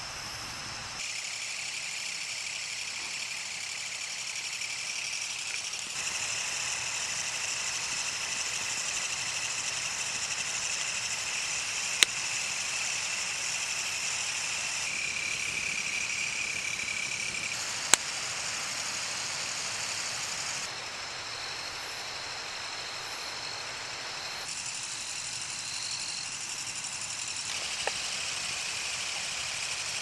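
Steady high-pitched chorus of night insects in the forest, with two sharp pops from the crackling campfire about six seconds apart.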